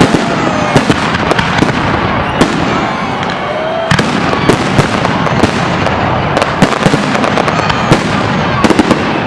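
Fireworks salute: a dense, continuous crackle with many sharp bangs in quick succession.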